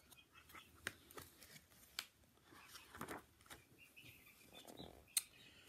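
Faint rustling and a few soft clicks of a paperback picture book being handled, opened and its pages turned.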